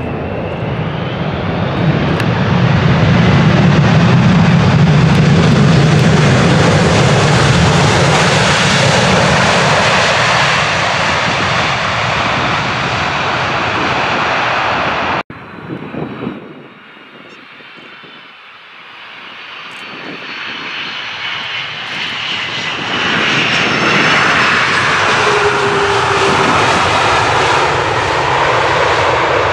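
Boeing 747-400 jet engines at takeoff power: a loud, deep rumble as the four-engined jet passes, easing off as it moves away, then cutting off abruptly about halfway through. A second 747-400's engines then build from quieter to loud, with a whine above the rumble, as it rolls for takeoff.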